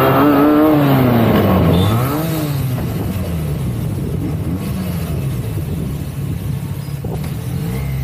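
Benelli 302S's 300 cc parallel-twin engine through its stock exhaust, revved up and then easing off in the first two seconds. It then runs at low revs with small rises and falls in throttle, picking up again near the end.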